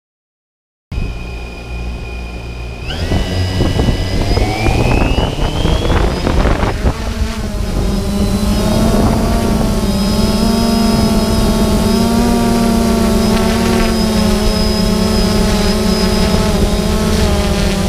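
A motor starts abruptly about a second in. Its whine rises in pitch for a few seconds, then it runs steadily at a constant pitch.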